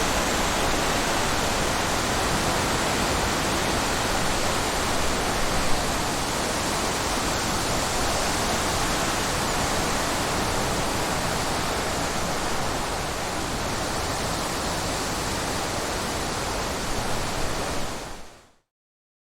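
Steady breeze sound: an even rushing hiss with little gusting, which fades out quickly to silence near the end.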